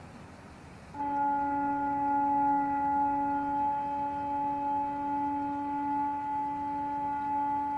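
An unexplained trumpet-like sound: a steady, horn-like drone on one held pitch with overtones. It starts suddenly about a second in and holds without a break.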